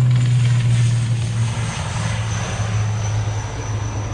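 ATR 72 twin-turboprop airliner at take-off power, lifting off and climbing away: a loud, steady propeller drone that drops a little in pitch and fades slowly, with a thin high whine above it.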